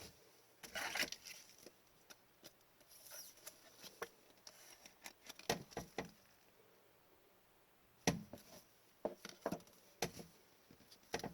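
Trading cards being handled on a table: scattered light taps, clicks and short rustles as cards are slid, flipped and set down.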